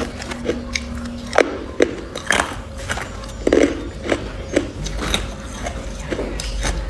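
Hard clear ice being crunched between the teeth: a string of sharp, irregular cracks, several in each second, with chewing between them.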